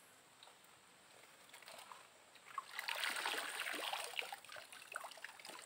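Shallow river water splashing and trickling as a person moves through it, starting about halfway in and lasting a second or two.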